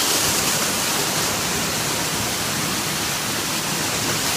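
Waterfall pouring at close range: a loud, steady rush of falling water.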